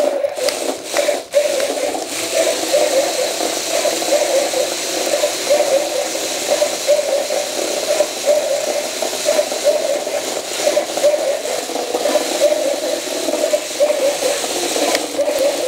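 Toy RC robot stunt dog driving about on its mecanum wheels on a concrete floor: its small electric drive motors and the wheels' rollers run steadily with a whirring, rattling noise.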